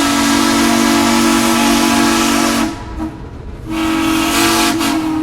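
Steam locomotive whistle blowing two long blasts, a chord of several steady tones over a hiss of steam. The first blast cuts off partway through, and the second begins about a second later and holds to the end.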